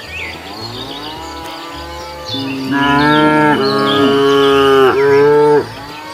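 Cows mooing: a few shorter moos that rise and fall, then one long, loud moo from about two seconds in until shortly before the end.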